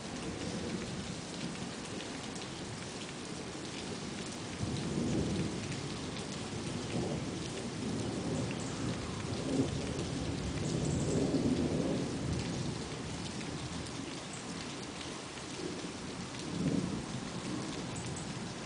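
Thunderstorm: steady rain pattering throughout, with low thunder rumbling in three rolls, about four seconds in, a longer, louder one in the middle, and a shorter one near the end.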